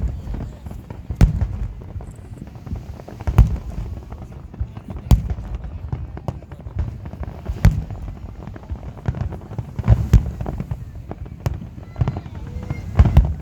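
Underwater fireworks dropped from a moving boat, bursting at the sea surface: sharp bangs every second or two with a low rumble between them.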